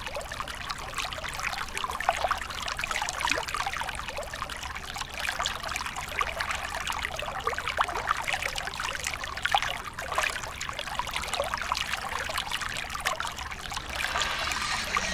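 Steady trickling, water-like noise made of many small crackles, with no break.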